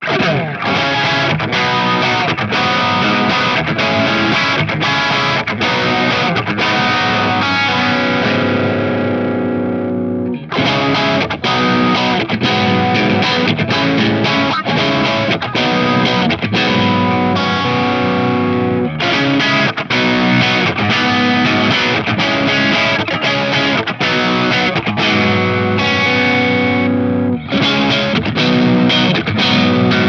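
Covenant Tradition Standard T-STD electric guitar with HSS Alnico V pickups, played through overdrive in chords and riffs through each pickup position in turn. The playing comes in passages that ring out and restart about 10, 19 and 27 seconds in.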